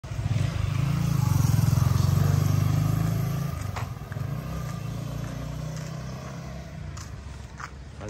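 A motorcycle engine running close by, loudest in the first three seconds, then fading as the bike rides off along the road.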